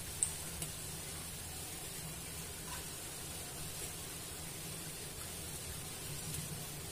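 Faint, steady sizzle of potato snacks deep-frying in hot oil, with a single light click about a quarter second in.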